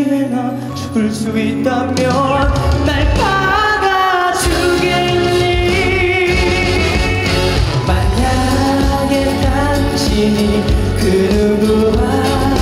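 Live performance of a ballad with a band backing a singer, who holds long, wavering notes.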